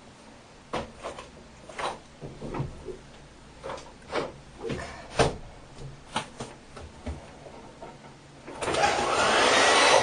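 A few scattered light knocks and rustles, then, near the end, a hair dryer switches on and runs loudly and steadily, blowing out the baby powder packed into it.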